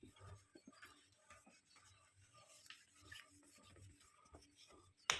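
Faint rubbing on a plastic car headlight lens by hand, a run of short scratchy strokes, with one sharp click about five seconds in.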